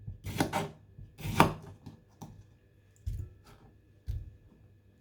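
Kitchen knife cutting through a fresh cucumber onto a cutting board: a few crisp cutting strokes in the first second and a half, then two duller knocks later on.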